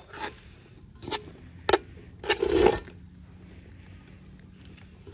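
Metal tongs clanking and scraping against an aluminium cooking pot while stirring pasta, in a few separate knocks with the loudest clatter just after the middle.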